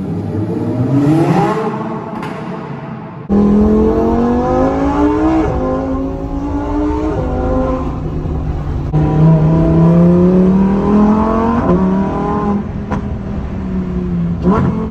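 Supercar engine accelerating hard through the gears at high revs. The pitch climbs in each gear and drops back at every upshift, about five shifts. About three seconds in, the sound jumps abruptly louder and fuller.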